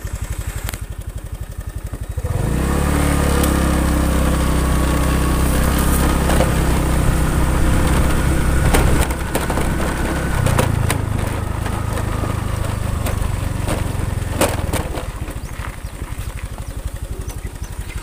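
Small motorcycle engine idling with a fast putter, then pulling away about two seconds in and running steadily. The engine note changes about ten seconds in, as the rider shifts or eases off, and it runs at a lower level toward the end.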